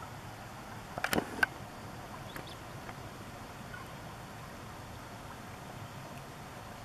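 Steady, faint outdoor background noise, broken about a second in by a short cluster of sharp clicks or knocks, with a few fainter ticks later.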